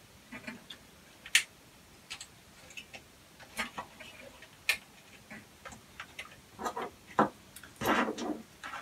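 Scattered sharp clicks and taps of hands fitting a lamp jig's wire leads onto the fuse holder inside an opened AV receiver's chassis, with a sharp click about a second and a half in and a denser run of handling noise near the end.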